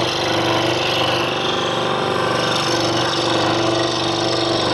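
Scroll saw running steadily, its reciprocating blade cutting through a thin wooden puzzle panel.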